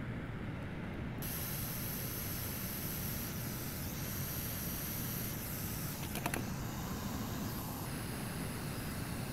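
Steady low hum with a high hiss that comes in about a second in and stops near eight seconds, and a single light click around six seconds.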